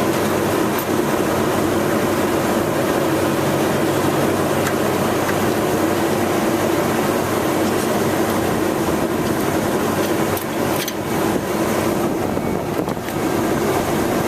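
Steady mechanical hum and whir of running machinery, like fans or refrigeration plant, with a few light handling clicks about two-thirds of the way through.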